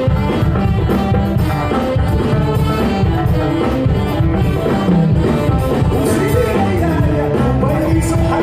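Loud music with singing and a steady beat, played over a PA sound system during a sound check.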